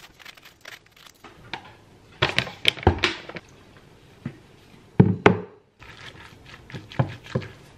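Kitchen prep sounds: cabbage being shredded into a stainless steel bowl in a run of crisp strokes, then a wooden spoon stirring the shredded cabbage, with two sharp knocks against the bowl about five seconds in.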